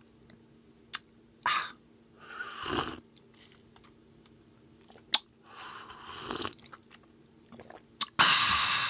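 Several slurping sips of hot coffee, each a short airy rush, the longest and loudest near the end, with a few sharp clicks between them.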